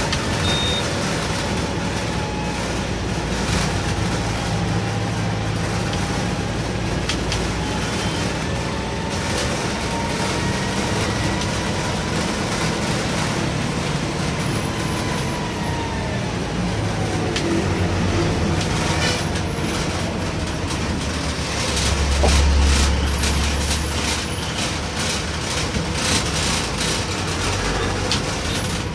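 Bus engine and road noise heard from inside the cabin while driving, a steady drone. A deeper rumble swells about three quarters of the way through, and clicks and rattles run through the second half.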